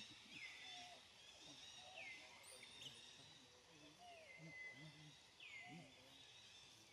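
Faint outdoor ambience: a high call sweeping downward repeats about every second and a half over a steady high hum, with faint low scattered sounds beneath.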